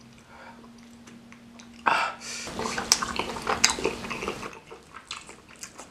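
Close-miked wet eating sounds from a sauce-soaked bakso aci (tapioca meatball) in spicy broth. A sudden loud wet sound comes about two seconds in, then about two seconds of squelching, dripping and sharp clicks that fade away.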